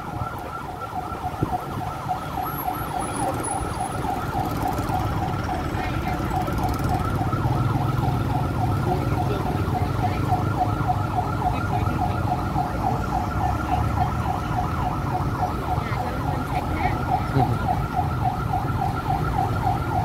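Fire truck siren sounding a fast, steady warble that repeats several times a second. A low engine rumble runs underneath and grows louder from about seven seconds in.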